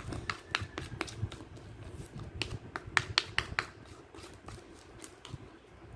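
Freshly activated glue slime being mixed and worked, not yet firmed up, giving off irregular sharp sticky clicks and pops. The clicks come thickest in the first half and thin out toward the end.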